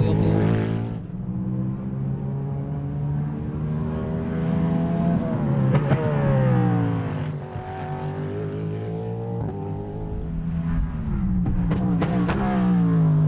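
Cadillac V-LMDh prototype race car's V8 engine running hard on track, its revs falling and rising several times as it brakes, changes gear and accelerates through corners.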